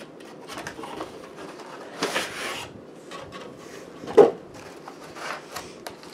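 Cardboard toy packaging being handled and opened: irregular rustling and scraping, with a louder scrape about two seconds in and a single sharp knock just after four seconds.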